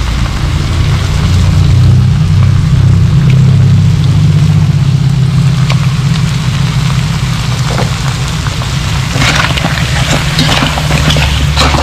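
Steady low roar, typical of a gas burner under a wok, with a metal spatula scraping against the wok. From about nine seconds in the scraping and clattering grows louder and busier as chili-powdered crab pieces and corn are tossed.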